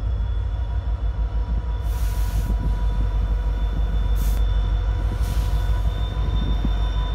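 Two EMD SD75I diesel locomotives approaching at low speed, their V16 two-stroke engines running with a deep, steady rumble and a steady high whine over it. Three short bursts of hiss come about two, four and five seconds in.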